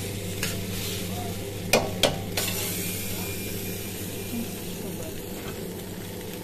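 Penne with prawns in cream sauce sizzling in a wok as it is stirred with a metal spatula. The spatula clanks sharply against the wok twice about two seconds in, over a steady low hum.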